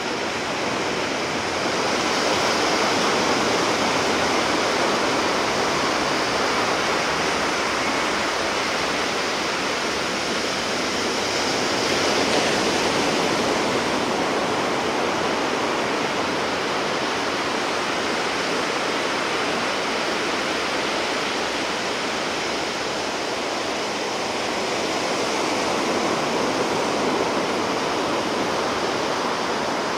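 Sea surf washing continuously on the shore, a steady rushing wash of waves that swells gently a few times.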